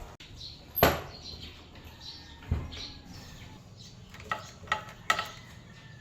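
A few sharp knocks: a loud one about a second in, another a second and a half later, and three quicker short ones near the end, with birds chirping faintly in the background.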